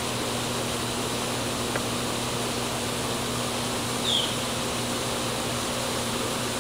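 Steady background hiss with a low, even hum. A short high chirp falls in pitch about four seconds in.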